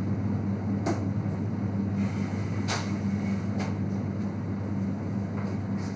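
Steady low mechanical hum of a restaurant kitchen's equipment and ventilation, with a few faint short clicks about one, three and three and a half seconds in.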